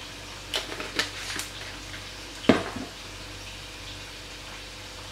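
Spice jar handled while paprika is sprinkled onto raw mince: a few light clicks and taps, then one louder knock about two and a half seconds in, followed by a smaller one.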